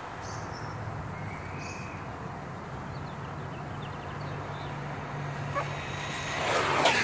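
Electric ECX RC truck driving on asphalt: its motor and tyres run faintly at a distance, then swell loudly as it comes back close, peaking near the end. A steady low hum runs underneath.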